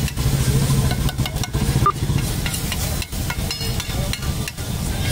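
A metal ladle scraping and knocking on a large flat tawa griddle as masala is stirred and spread, with frying sizzle, in irregular clicks over a steady low hum.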